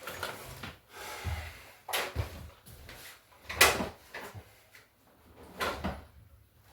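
Knocks and bumps of a 1/10 scale RC truck being handled and moved in a wooden display case: several separate thuds, the loudest about three and a half seconds in.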